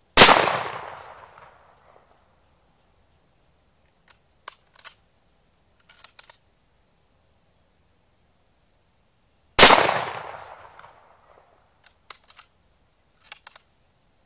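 Two rifle shots from a Mosin-Nagant bolt-action rifle in 7.62x54R, about nine and a half seconds apart, each echoing away over about two seconds. A few short sharp clicks follow some seconds after each shot, over a faint steady high buzz of insects.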